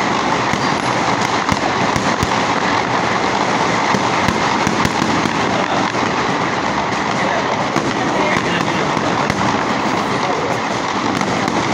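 Many fireworks going off at once without a break: a constant wash of crackling with sharp bangs scattered all through it.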